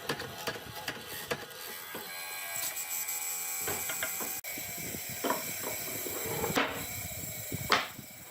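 Irregular small mechanical clicks and scrapes, with a sharp knock near the end.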